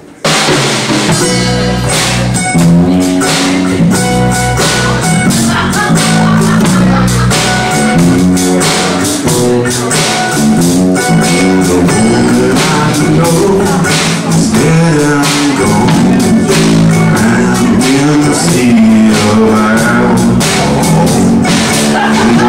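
Live band playing a slow, sad song: drum kit with timbales, electric bass and guitar, kicking in suddenly at the start, with a man singing lead into the microphone.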